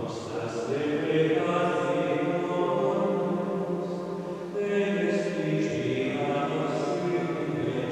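Slow sung chant with long held notes that step from pitch to pitch: a closing hymn sung right after the dismissal at Mass.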